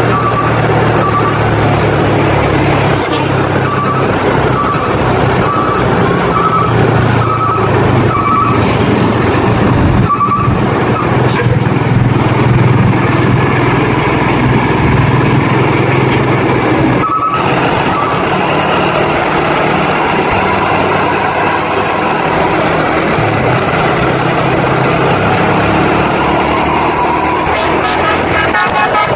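Heavy diesel road vehicle passing close by, with a steady low engine rumble and road noise. Short high horn notes sound in clusters during the first ten seconds and again around seventeen seconds. A multi-note telolet horn starts up near the end.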